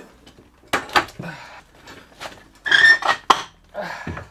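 A man grunting and straining with effort as he lifts and carries a heavy outboard motor on his own, with a few sharp knocks as it bumps against things.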